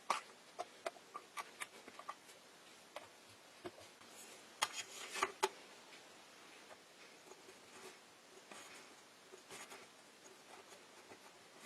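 Light clicks and taps of small objects being handled on a work surface, scattered at first, with a cluster of louder knocks a little before the middle and softer rustling later.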